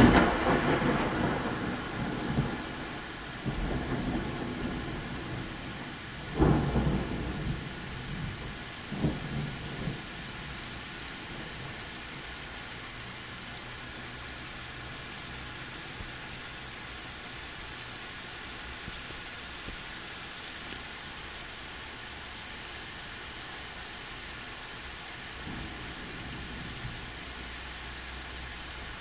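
Thunderstorm: a loud thunderclap right at the start rolls away over a few seconds, with more rumbles of thunder about 4, 6 and 9 seconds in. Steady heavy rain hisses throughout.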